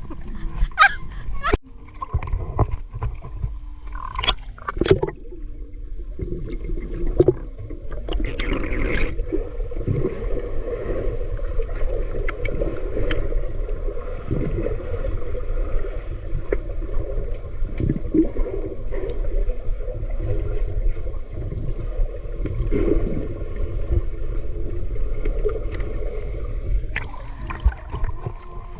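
Swimming-pool water being churned by swimmers: a few sharp splashes and knocks in the first seconds, then a steady rushing, gurgling wash of water.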